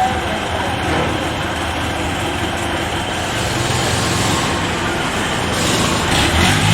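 Farm machine engine running steadily, rising in pitch near the end as it revs up.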